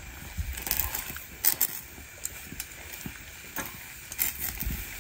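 Metal tongs clicking and tapping against a wire grill rack as roasting tomatoes are turned over: scattered light clicks and knocks at irregular intervals.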